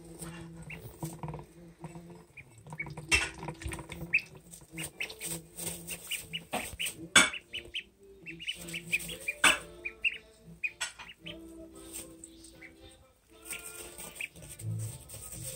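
Ducklings peeping repeatedly in short high peeps while feeding, with sharp clicks scattered through.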